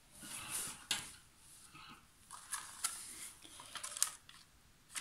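Stiff protective release paper of a diamond painting canvas rustling as it is unrolled and flattened by hand, with sharp crackles about a second in, near three seconds and at four seconds.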